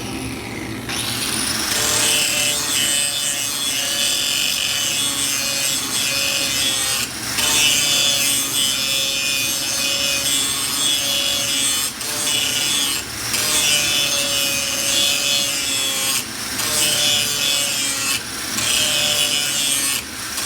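A power tool's abrasive disc grinding the cutting edge of a steel lawn mower blade, a steady rasping with the motor's pitch wavering under load. The grind breaks off briefly several times as the blade is lifted and set back against the disc.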